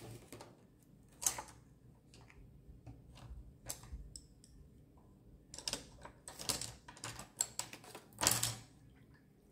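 Irregular light clicks and taps of painting tools being handled at the work table, with a busier run of taps a little past halfway and another near the end.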